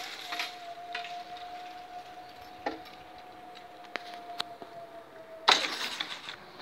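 Electric drive of level-crossing barriers whining with a steady tone while the arms come down, its pitch sagging as it stops at about five and a half seconds. A few sharp clicks fall in between, and a loud burst of rushing noise comes in suddenly near the end.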